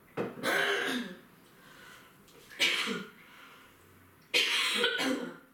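A woman coughing three times to clear phlegm caught in her throat, which has left her voice hoarse.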